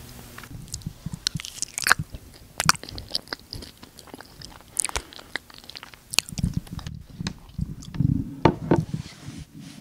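Close-miked chewing and biting of food held right up to a handheld microphone, ASMR-style: a run of irregular crunchy clicks and mouth sounds, with a few heavier low bumps later on.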